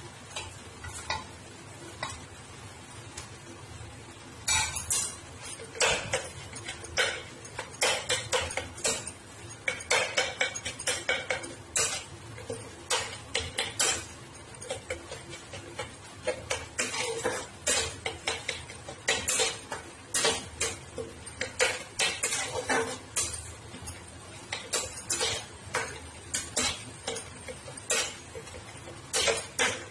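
Steel spatula clinking and scraping against a steel pan of dal as it is stirred, with irregular sharp clinks several times a second starting about four seconds in.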